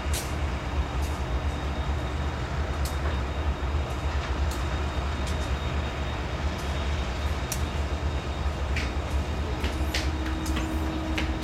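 Norfolk Southern freight train rolling past: a steady low rumble with scattered sharp clicks, and a faint steady tone joining about ten seconds in.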